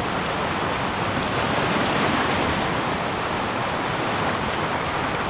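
Ocean surf washing against a rocky shore, a steady rush that swells slightly about two seconds in.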